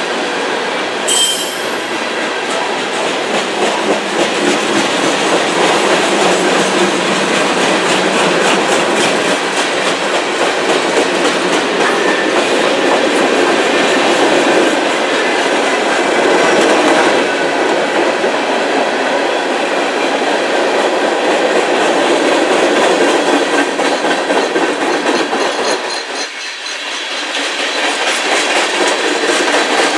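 Freight cars of a CN train rolling past close by: a steady loud rumble and clatter of steel wheels over the rails, with rapid clicking from the rail joints. The sound dips briefly a few seconds before the end.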